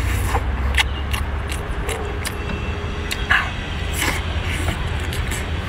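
Close mouth sounds of a person eating cooked seafood: slurping, sucking and chewing, with scattered wet clicks and smacks, over a steady low background rumble.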